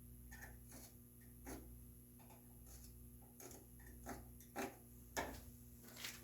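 Faint, irregular light clicks and taps of hand layout tools (square, rule, pencil or marking gauge) being set down and moved on an oak board while marking out a mortise, over a low steady room hum.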